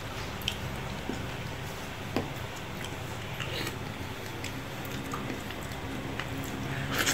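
Soft squishing and a few small clicks of cooked lobster shell and meat being picked apart by hand, with chewing.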